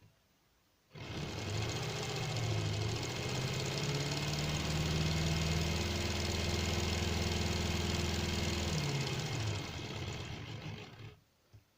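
Lego Technic one-cylinder engine model driven by a small 1.5-volt electric motor, starting suddenly about a second in, rising in pitch as it spins up, running steadily, then slowing in pitch and stopping shortly before the end.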